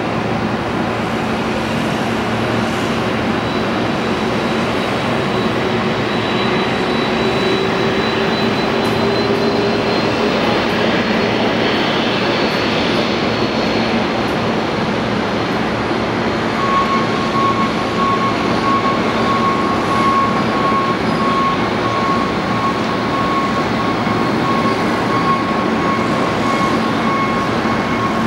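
Boeing 747-400's four Rolls-Royce RB211 turbofans running at taxi power: a steady rushing noise with a low hum and a high whine, joined by a second, middle-pitched whine a little past halfway through.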